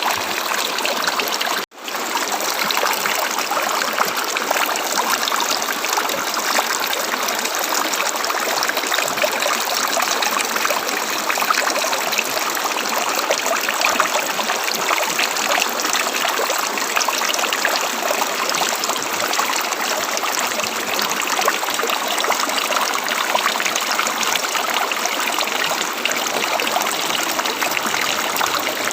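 River water flowing, a steady rushing, splashing sound. It cuts out for an instant about two seconds in, then carries on unchanged.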